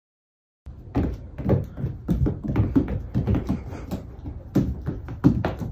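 A cat's paws thumping on a hardwood floor: a quick, irregular run of knocks starting about a second in.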